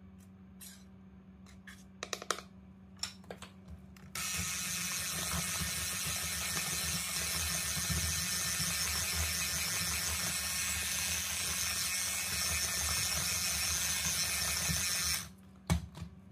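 Electric hand mixer beating flour into cake batter in a glass bowl: it starts suddenly about four seconds in, runs steadily for about eleven seconds and then switches off. Before it, a few light clinks; a single knock just after it stops.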